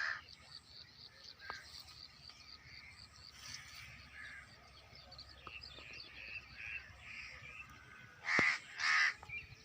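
Birds calling outdoors: a steady scatter of short calls, with two loud calls in quick succession near the end.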